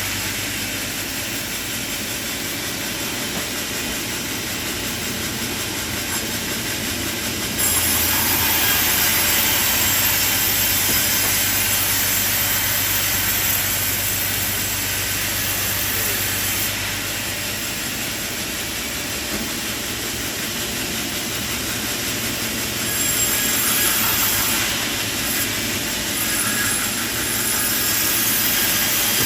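Sawmill machinery running steadily with a low hum. About eight seconds in it turns louder and hissier for roughly nine seconds, and again briefly near the end, as the saw cuts through timber.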